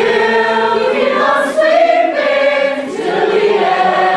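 A group of voices singing together in long held notes, with the pitch shifting a few times.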